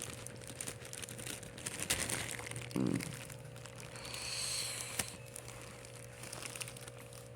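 Packaging crinkling and rustling as it is handled during unboxing, with scattered small clicks and a longer rustle about four seconds in.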